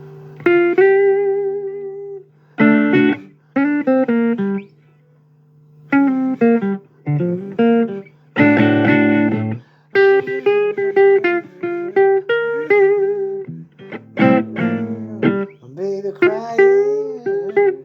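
Blues guitar played in phrases of plucked notes and strummed chords, some notes held and bent, over a steady low hum.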